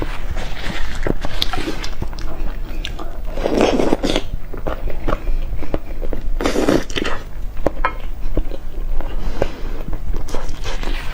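Close-miked eating: biting and chewing with many small wet clicks, and two louder stretches of chewing or slurping about three and a half and six and a half seconds in.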